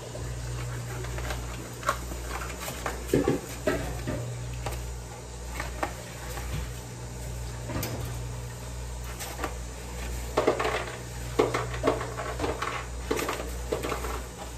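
Pickling salt being measured out of a resealable plastic bag with a plastic measuring spoon: the bag rustles and the spoon clinks against kitchenware in scattered bursts, busiest about three seconds in and again near the end. A steady low hum runs underneath.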